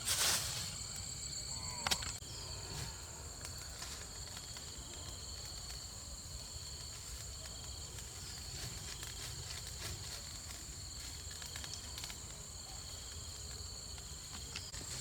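Insects chirring in a steady, high, unbroken drone over a low outdoor rumble, with a short rush of noise at the start and a sharp click about two seconds in.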